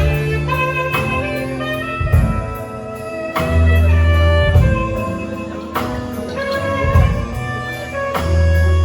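Band music in a jazzy style, with a bass line under held melody notes and a regular drum beat.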